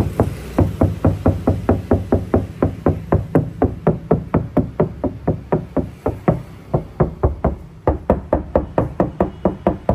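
Knuckles knocking rapidly and evenly on the body of an MG5 not yet fitted with sound-deadening, about four to five knocks a second, each with a short ringing tone, over a steady low hum. The knocking is a test of how thin and resonant the untreated panels are.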